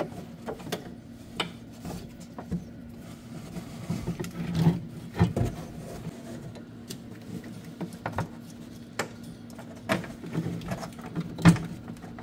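Hands routing wiring and fitting the oxygen sensor's plug under a seat: irregular clicks, taps and rustles of cable and plastic connectors over a steady low hum. The loudest knocks come about five seconds in and again near the end.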